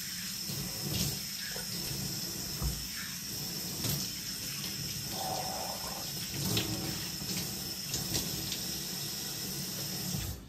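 Bathroom sink tap running steadily while someone splashes water on their face, with short splashes over the flow. The tap is shut off abruptly at the end.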